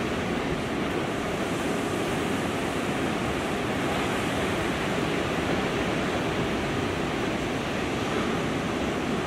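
Ocean surf from large swell breaking, a steady, even rushing noise with no separate crashes standing out.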